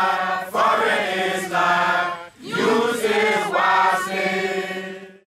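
Several voices chanting together in long phrases over a steady low drone, with a short break about two seconds in.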